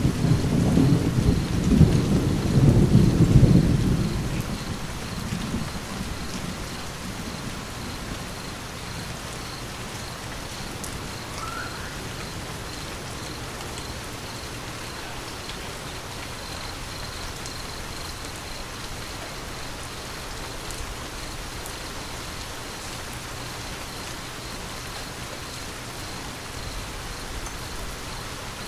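Steady rain falling with a low thunder rumble at the start that fades away over the first few seconds, leaving an even hiss of rain.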